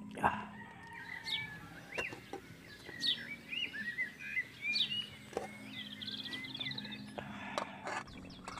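A metal spoon clinks and scrapes against a metal pot as rice is scooped out, a few sharp clinks with the loudest just after the start. Birds chirp and call throughout, with a quick trill about six seconds in.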